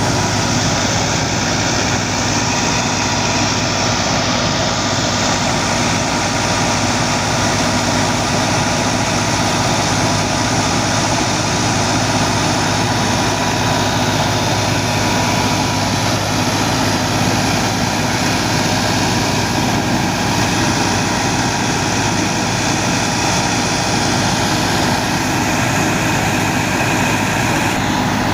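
Massey Ferguson 385 tractor's four-cylinder diesel engine running steadily, mixed with the steady noise of the wheat thresher it drives.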